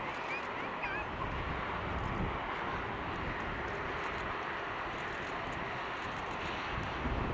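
Jet airliner engines, a steady rumbling roar, growing deeper near the end. A few short bird chirps in the first second.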